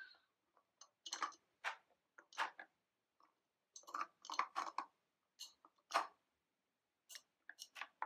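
Light, irregular clicks and taps of plastic toy parts handled by hand: a toy crane's plastic hook and a plastic traffic barrel being moved, with short pauses between the knocks.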